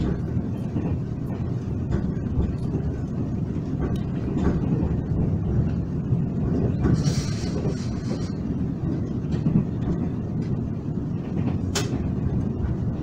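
Taiwan Railways express train running at speed, heard from inside the carriage as a steady low rumble. A brief hiss comes about seven seconds in and a single sharp click near the end.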